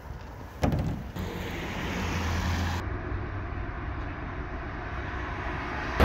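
Road vehicle noise: a steady low rumble of a car or traffic, with a sharp knock a little over half a second in. The sound changes abruptly about three seconds in.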